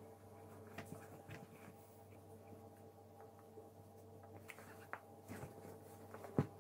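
Quiet room with a steady low hum and scattered soft clicks and taps as a toddler eats finger food, with one sharper knock near the end.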